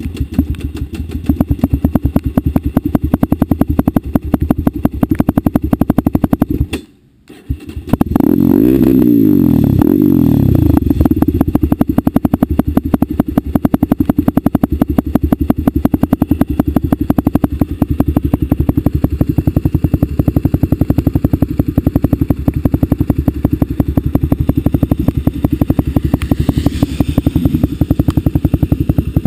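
Sport quad's engine idling with a fast, even pulse. After a brief gap about seven seconds in, it revs up and back down once, then settles back to idle.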